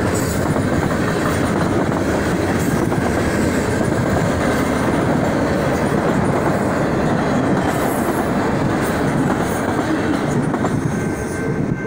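Freight train cars rolling past at a grade crossing: a steady rumble with the clickety-clack of wheels over the rail joints, easing slightly near the end as the last car goes by.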